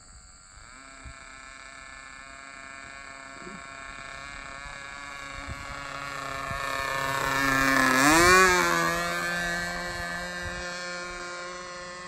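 Seagull Models Super Chipmunk RC model airplane's motor droning in a flyby. It grows steadily louder as the plane approaches, peaks about eight seconds in as the pitch drops sharply on the pass, then fades as it flies away.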